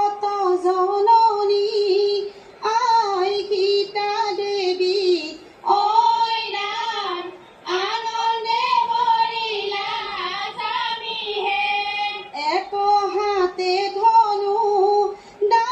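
Women singing an Assamese biya geet (wedding song) in high voices, in sung phrases with short pauses between them, heard through a television's speaker.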